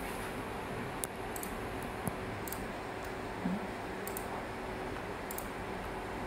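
Steady background hiss with a few faint, sharp clicks, one about a second in and another about two seconds in.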